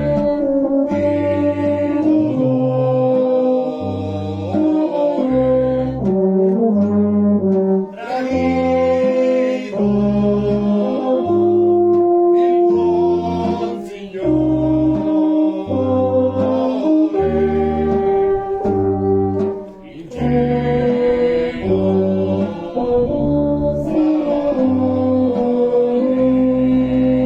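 Town brass band playing a slow piece in held chords. A low bass line changes note about once a second, with short breaths between phrases.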